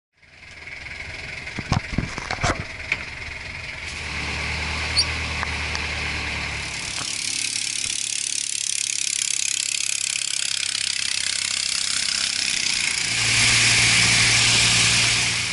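Motor boat under way on a river, heard from on board: its engine runs with a low steady drone under a loud rush of water spray and wind. A few sharp knocks come near the start, and near the end the engine note rises and the whole sound gets louder.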